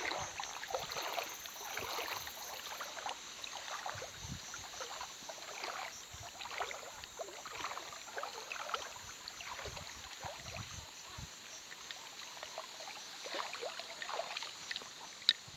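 River water splashing and sloshing irregularly, with many small splashes over a steady watery hiss.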